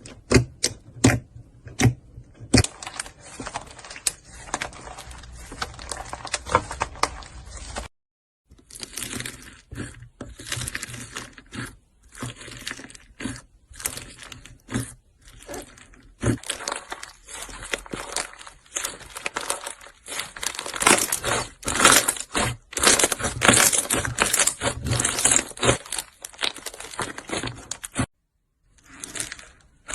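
Slime being handled, crackling and popping with many quick sharp clicks and crunches, broken twice by a brief silence.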